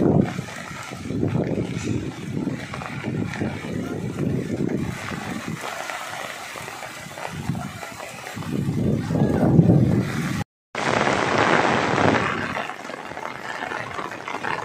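Strong wind buffeting the microphone in heavy gusts over the steady hiss of heavy rain. After a brief cut about ten seconds in, the hiss of rain on the road is louder and the wind rumble mostly drops away.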